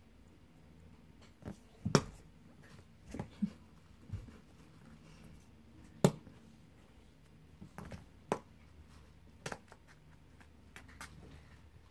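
Kittens moving about in a cardboard box: scattered light knocks and scratches of paws on cardboard, the sharpest about two seconds and six seconds in.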